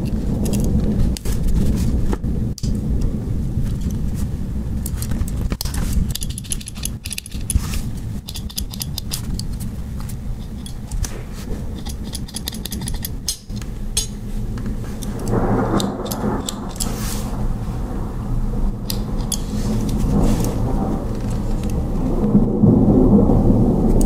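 Small metal clicks and clinks from a Victorinox Farmer X Alox Swiss Army knife's tools, its scissors among them, being opened and handled, over a steady low rumble.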